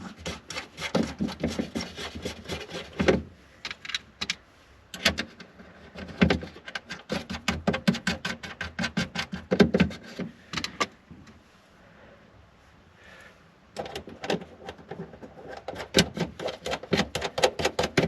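Rapid runs of sharp clicks and knocks, several a second, from hand work fastening the tail light back into the car body. The clicking pauses for a couple of seconds about two-thirds of the way through.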